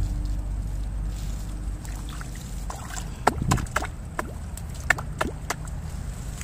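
Water sloshing over a low rumble, with a cluster of sharp knocks and splashes between about three and five and a half seconds in.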